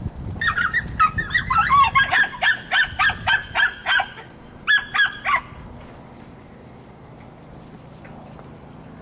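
A puppy yapping rapidly and shrilly while it works goats, about three or four yaps a second in two runs, stopping about five seconds in.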